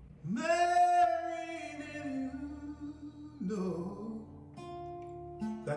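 A man singing a slow ballad with acoustic guitar accompaniment, opening on a long held note about a third of a second in, followed by shorter sung phrases over plucked guitar notes.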